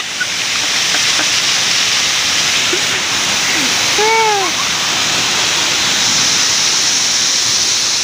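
Waterfall rushing, a loud, steady roar of falling water. A person's short call is heard briefly about four seconds in.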